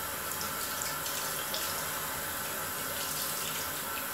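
Tap running steadily into a bathroom sink as conditioner is rinsed out of a doll's hair under it, with small splashes.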